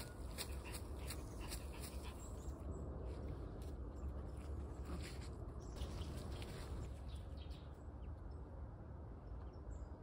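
Dry fallen leaves rustling and crackling on a forest path as a small dog and a walker move through them. The crackling is busiest in the first few seconds and again around the middle, and thins out toward the end, over a low steady rumble.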